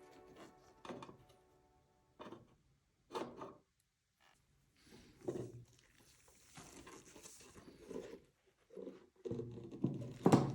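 Scattered light knocks, clicks and rubbing from handling a wall clock's dial, Bakelite frame and glass cover as they are fitted together, with a sharper knock near the end.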